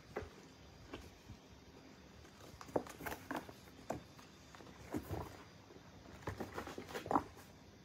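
Kittens scuffling on a corrugated-cardboard cat scratcher: irregular taps, thumps and scrapes of paws and claws on the cardboard as they wrestle and jump, loudest about three, five and seven seconds in.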